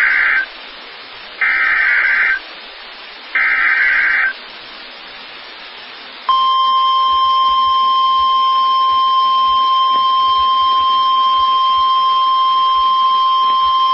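Emergency Alert System tornado warning over a hissy broadcast: three one-second buzzy bursts of digital SAME header data, then about six seconds in the long, steady, single-pitched attention tone begins and holds.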